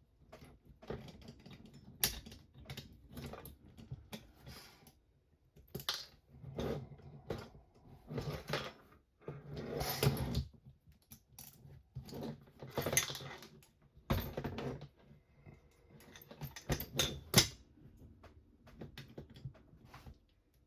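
Small hardware and plastic kit parts being handled and fitted by hand: irregular clicks, taps and light rattles, with a few longer scraping or rustling sounds.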